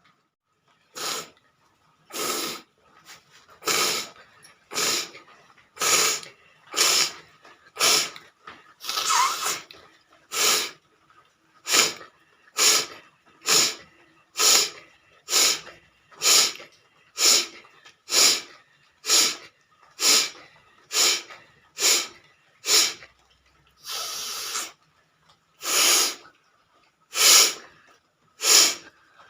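A person with a head cold blowing forcefully through the nose over and over, short sharp nasal blasts about one a second, to clear mucus. Two of the blows, about a third of the way in and near the end, are longer.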